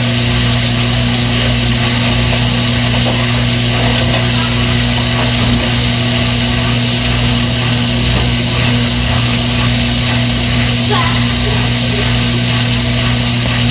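Front-load washing machine running with a steady, unchanging hum.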